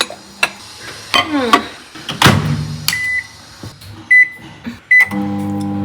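Microwave oven heating food: its door shuts with a thump about two seconds in, the keypad beeps three times, and then the oven starts running with a steady hum.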